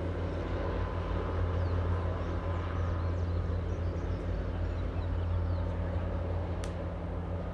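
Distant diesel-hauled commuter train crossing a high steel trestle viaduct: a steady low rumble and drone. Faint bird chirps and one sharp click about six and a half seconds in.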